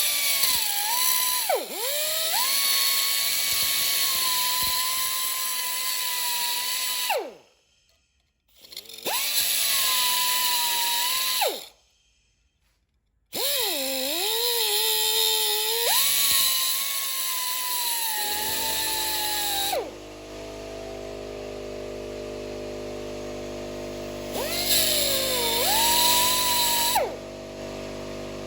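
Air-powered cutoff wheel whining in several runs of a few seconds, its pitch sagging as it bites into the axle-shaft bearing's race, with short stops between runs. About 18 s in, an air compressor starts running with a steady hum under one last short run of the cutoff tool.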